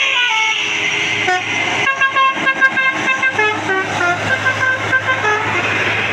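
A tour bus's 'telolet basuri' musical multi-note horn playing a tune. It starts with a run of falling notes, breaks briefly, then plays a quicker string of short notes for about three and a half seconds.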